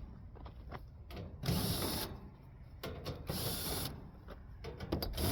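Cordless drill-driver spinning screws out of a central air conditioner's sheet-metal base in three short bursts, about two seconds apart, with faint clicks of metal between them.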